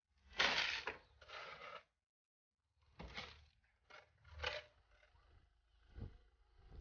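A tool scraping and crunching through loose stone aggregate in a run of short strokes with pauses between. The first stroke, just after the start, is the loudest and lasts about a second. More follow at about 3 and 4.5 seconds, and fainter ones after that.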